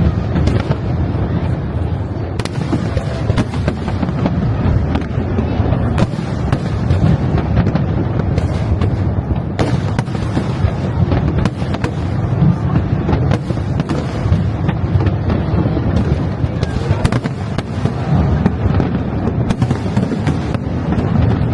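Fireworks display going off continuously: many sharp bangs and cracks in quick succession over a constant low rumble of booming shells.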